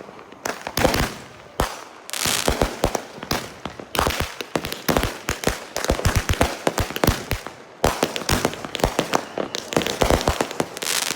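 Fireworks going off in rapid, irregular volleys of sharp bangs and crackling, with a few short lulls.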